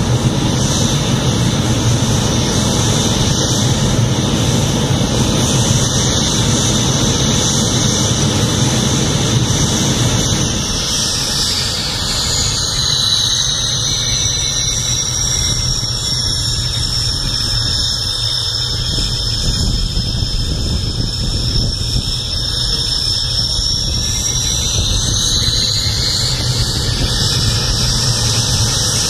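F-7 fighter's turbojet engine running on the ground: a loud, high whine over a steady low rumble. The whine drops in pitch about eleven seconds in, stays low, and climbs back up near the end, and the rumble eases while it is low.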